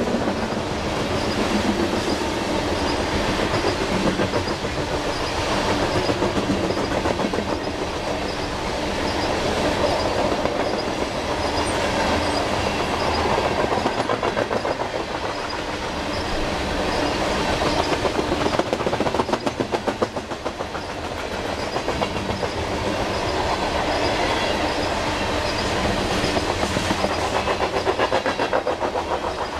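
Loaded coal hopper cars rolling past at close range: steady rumble of steel wheels on rail with a continuous rhythmic clickety-clack as the wheels pass over the track.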